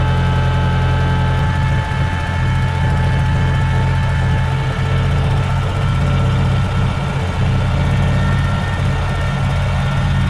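1968 Ford 5000 tractor engine idling steadily.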